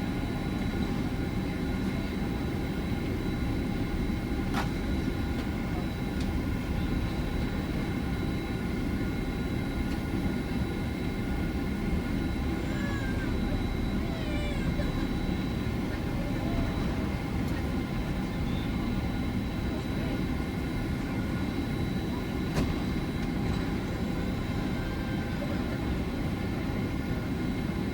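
Steady cabin noise inside a Boeing 767-400ER: an even rumble of engine and airflow with several steady high whining tones from its General Electric CF6 turbofans.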